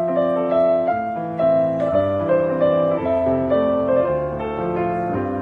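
Soft background piano music: a slow melody of held notes over a low accompaniment.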